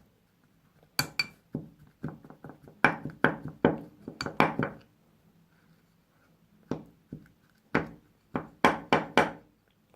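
A spoon knocking and scraping against a bowl while stirring a thick flour, shampoo and water dough, in irregular clusters of sharp clicks with short pauses between.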